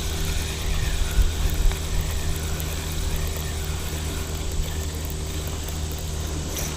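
An engine running steadily at low speed: a low, even hum with no change in pitch.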